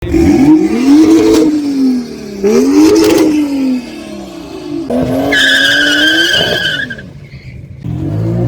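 Modified car engine revved hard twice, each rev rising and falling, with sharp cracks near the top of each rev, then revved again. A high steady squeal lasts about a second and a half, and the engine picks up again near the end.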